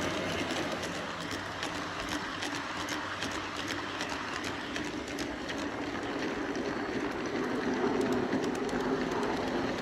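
G scale model train cars rolling past close to the track: a steady rolling rumble of wheels on rail with many small clicks, growing slightly louder near the end.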